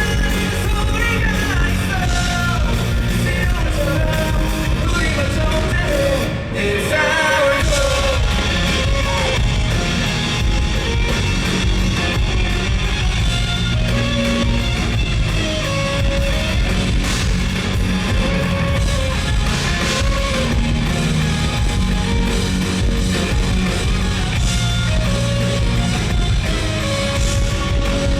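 A live rock band playing loudly with electric guitar and vocals, with a brief break about six seconds in.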